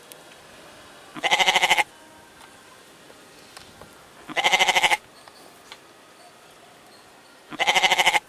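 Young goat kid bleating three times, about three seconds apart; each bleat is a short, quavering call of about half a second.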